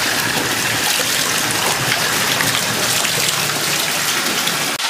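Water running steadily into a bathtub from the tap or shower, a constant rushing splash around the dog being bathed.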